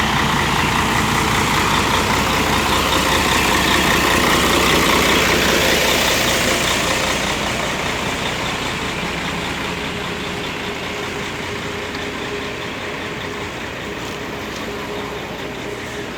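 Mercedes-Benz O-400 RSD coach's diesel engine running loud, swelling to its loudest about five seconds in, then fading over the next few seconds to a steadier, quieter run.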